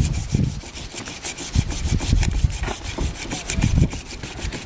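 Knife scraping the scales off a large whole fish on a cutting board, in quick repeated rasping strokes with low knocks under them.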